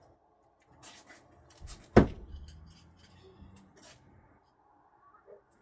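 A thrown screwdriver striking a wooden target once, about two seconds in: a single sharp hit with a short ringing decay, after some faint shuffling from the thrower.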